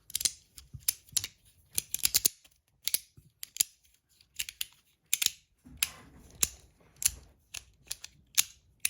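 Flat Verk slider fidget being worked by hand: its plates slide and snap into place with sharp, irregular clicks, some in quick pairs, and a short rubbing slide about six seconds in.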